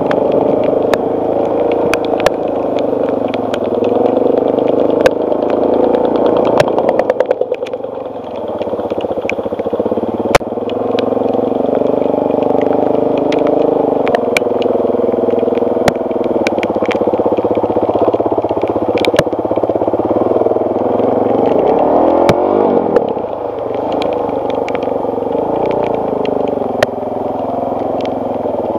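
2007 Suzuki DR-Z400S's single-cylinder four-stroke engine running under load, its revs rising and falling with the throttle. Scattered sharp clicks and knocks run throughout.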